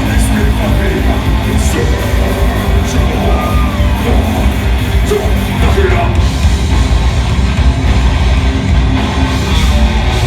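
Live heavy metal band playing loud, with distorted guitars, heavy bass and drums, and a vocalist yelling over them.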